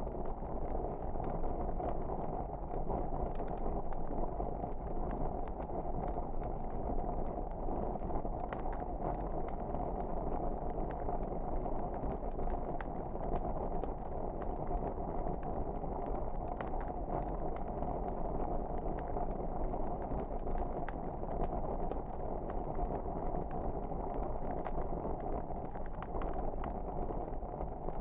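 Wood fire burning in a fireplace: a steady low rush of flame with many small crackles and pops scattered throughout.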